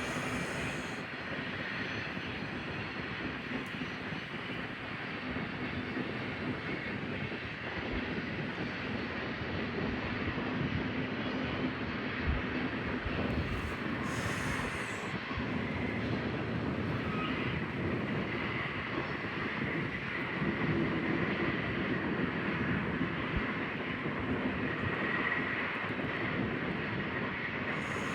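Freight grain train rolling along the rails: a steady rumble of wheels and cars with a thin, high wheel squeal, strongest in the second half.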